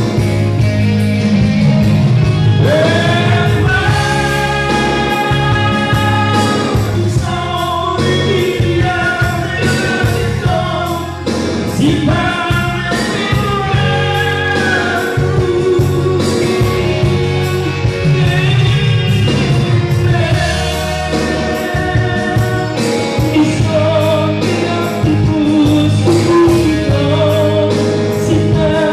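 Three male voices singing a Batak-language song together into microphones, with sung notes held and bending over instrumental accompaniment with a steady bass and beat.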